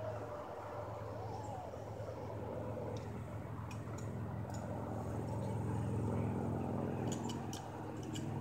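Zip line trolley running along the steel cable: a steady low hum that grows louder toward the middle and eases off near the end, with a cluster of sharp clicks in the last second or so.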